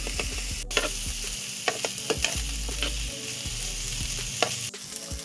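Diced pork frying in hot oil in a pan, a steady sizzle, with a metal spatula scraping and tapping against the pan now and then as the pieces are stirred to brown them.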